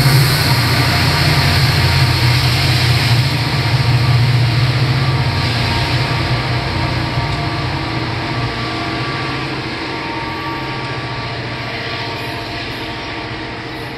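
EMD GP40PH-2B diesel-electric locomotive's two-stroke V16 engine droning low and steady as it passes close by pulling out, the drone dropping away after about five or six seconds. The rumble of the passenger cars and cab car rolling over the rails then fades steadily as the train draws away.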